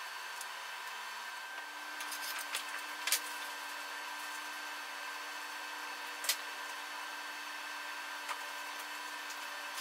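Steady machine hum with several fixed tones, with a few sharp clicks and taps of parts being handled: the loudest about three seconds in and again just after six seconds.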